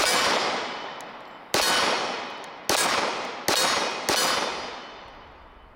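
Five shots from a Commander-size 1911 pistol, fired at an uneven pace over about four seconds. Each shot trails off in a long echo.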